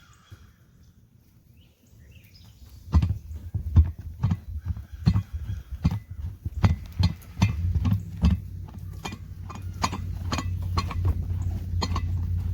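Irregular clacks and knocks, many over about nine seconds, as the outboard water pump housing is pressed down over a new impeller and the driveshaft is turned clockwise so the rubber vanes fold into the housing. A low steady hum builds beneath them from about eight seconds in.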